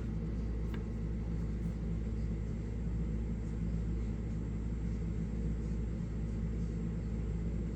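Steady low hum with no change in level.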